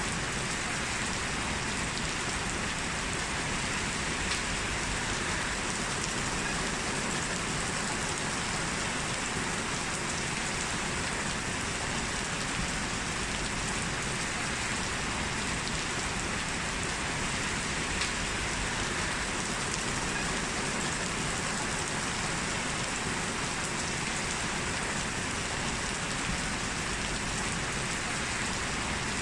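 Heavy rain falling steadily, an even hiss with a few sharper drop ticks now and then.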